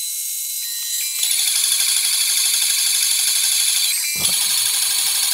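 DeWalt router running as the spindle of a Shapeoko3 CNC machine milling aluminum plate: a steady high-pitched whine that gets louder about a second in and dips briefly about four seconds in.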